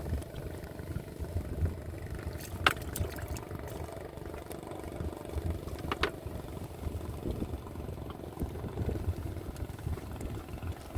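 A low, steady rumble like a small engine running, with two sharp clicks, one about a quarter of the way in and one about halfway through.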